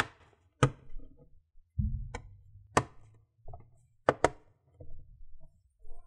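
Plastic bottom cover of a Lenovo IdeaPad Slim 1 laptop snapping onto the chassis as it is squeezed down: a string of about seven sharp, irregularly spaced clicks as the cover's clips catch, the sign that the clips are seated. A dull thump about two seconds in.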